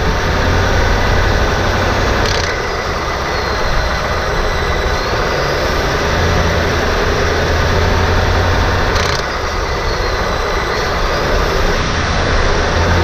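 2018 Ford F-150 engine running steadily, with two short sharp clacks, one about two seconds in and one about nine seconds in, each as the engine sound eases off. This is the gentle rattle or clack the owner hears from near the transmission when coming off the throttle.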